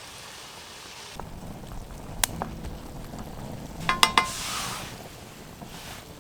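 Sausage and vegetables sizzling in a water-deglazed metal cook-set pan over a small wood fire, with a sharp click a little after two seconds and a few ringing metallic clinks about four seconds in.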